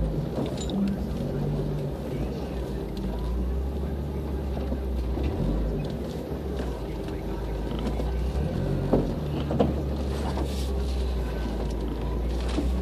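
Off-road 4x4's engine running steadily at low revs, heard from inside the cab while crawling over rough trail ground, with a few knocks and clunks of the vehicle about two-thirds of the way in.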